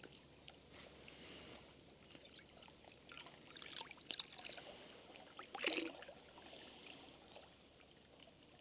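Lake water being scooped up into a container: light splashing and trickling, with the biggest slosh a little before six seconds in.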